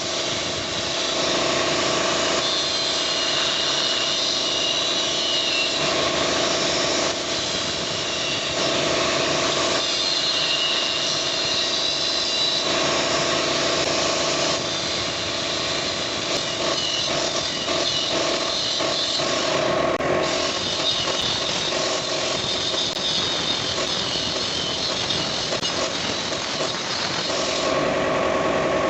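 A machine running steadily: a continuous mechanical hum with a steady whine over it, changing in tone every few seconds.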